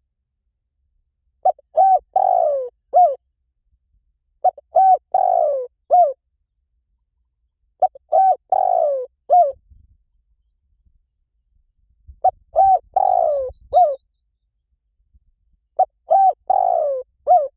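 Spotted dove cooing in repeated phrases of three or four coos, five phrases about every three and a half seconds. In each phrase the long middle coo slides down in pitch.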